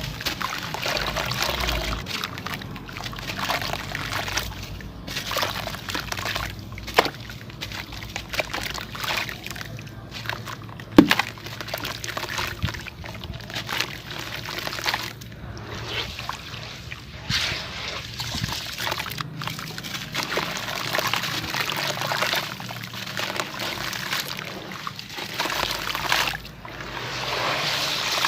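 Shaped lumps of dried sand-cement being dipped in water and crumbled, with wet sloshing and crumbling in irregular swells. A few sharp snaps come through, the loudest about eleven seconds in.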